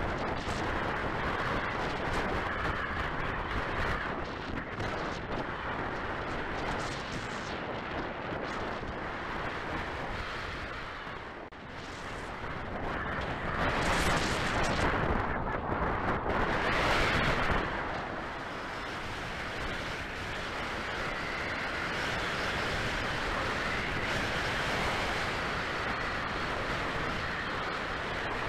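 Rushing airflow and wind buffeting on the camera of a 1/8-scale Nemere radio-controlled glider in flight, swelling to two louder rushes around the middle.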